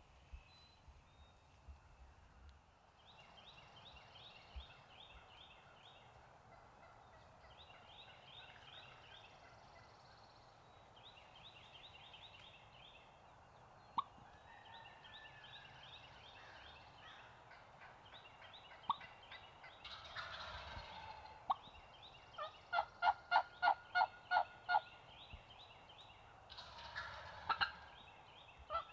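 Wild turkey gobbler gobbling hard on the roost at first light: two loud gobbles, about two-thirds of the way through and again near the end, with a run of about a dozen evenly spaced turkey yelps between them. Small songbirds sing repeated phrases in the background.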